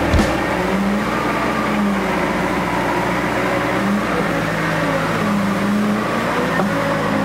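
Off-road 4x4 engine running steadily, its pitch rising and falling slightly, while the vehicle is pulled along on a strap or cable.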